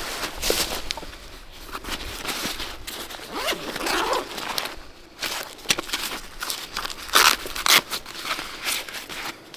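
Wood being cut and worked with hand tools: irregular rasping, tearing strokes, with a few sharper knocks near the end.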